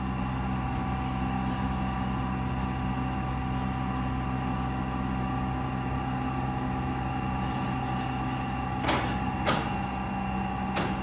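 Shimodaira HAR-300 right-angle two-sided wood planer running steadily, a hum with several constant tones. Three sharp knocks come near the end.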